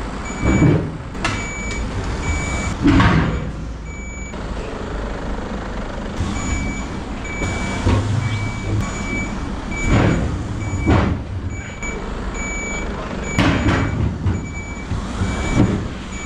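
A heavy truck's reversing alarm beeping in a steady on-off rhythm, pausing for about two seconds near the four-second mark, over the truck's diesel engine running as it backs up to a low-loader's ramps. Several short, loud bursts of noise break in over the engine.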